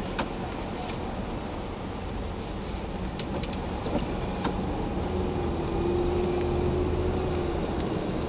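Road noise of a vehicle driving slowly on a rain-wet highway: steady engine rumble and tyre noise, with a few light ticks. A steady low drone comes in about five seconds in and the sound grows slightly louder.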